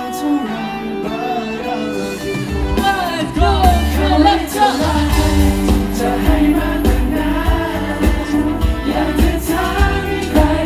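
Live pop-rock song from a boy group singing into microphones over a live band. Voices and guitar carry the opening, then the full band comes in heavily about two and a half seconds in.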